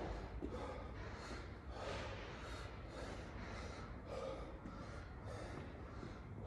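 A man breathing hard in quick, heavy gasps, out of breath from a workout set on the pull-up bar.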